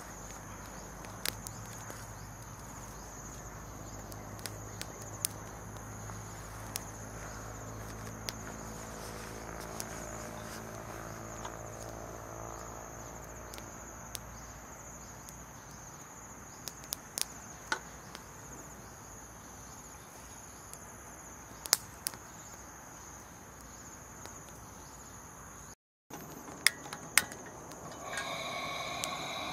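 Steady, high-pitched insect chorus, with scattered sharp clicks and knocks. A low hum fades out around the middle, and a different steady sound with a fixed pitch comes in near the end.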